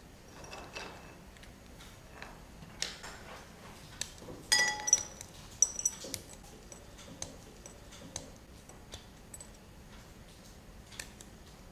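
Small glass bowls clinking on a countertop and dry nuts rattling as they are picked out by hand, with light scattered clicks. A ringing clink of glass comes about four and a half seconds in, and a shorter one just over a second later.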